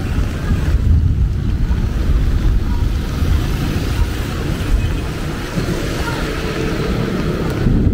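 Steady, loud noise of heavy rain, with a continuous low rumble underneath.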